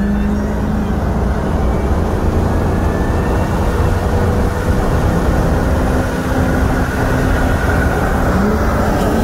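Cabin sound of a tuned BMW M5 F10's twin-turbo V8 pulling hard at full throttle through one long gear, its note climbing slowly, under heavy road and wind noise.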